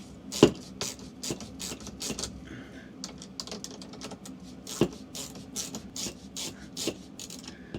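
Hand ratchet with a socket clicking in short, irregular runs as the slide-out chain adjuster bolts are turned loose, with a few louder metal knocks among the clicks.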